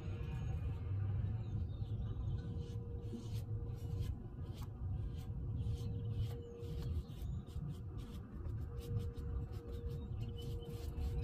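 Quick scratchy rubbing strokes of stain being worked onto a wooden door, repeating irregularly from about two seconds in, over a low steady rumble.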